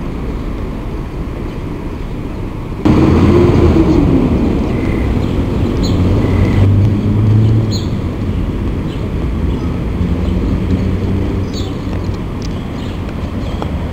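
Street traffic: steady engine and tyre noise of passing vehicles, which gets suddenly louder about three seconds in as a heavier vehicle goes by. A few faint short chirps of house sparrows come through the traffic.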